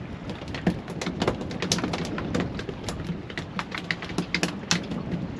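Small open boat on a choppy sea: water slapping and knocking against the hull in irregular sharp knocks several times a second, over a steady low hum.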